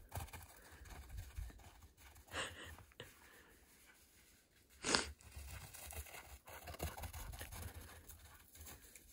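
Faint crunching footsteps on crusted snow over a low rumble of wind on the microphone, with two short, louder rushes of noise about two and a half and five seconds in.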